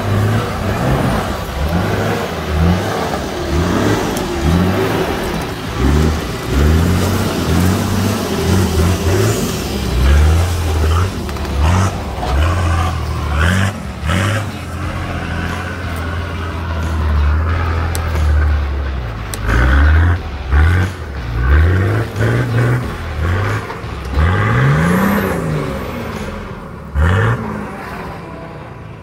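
Four-wheel-drive engine revved in repeated short bursts, its pitch rising and falling each time, as the vehicle crawls up a steep rutted dirt-and-rock climb with its wheels spinning. A few sharp knocks sound over it.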